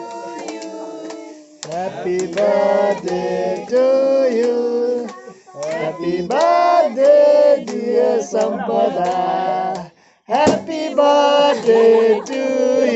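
A group of men and women singing a birthday song together, in sung phrases of a few seconds with short breaks between them.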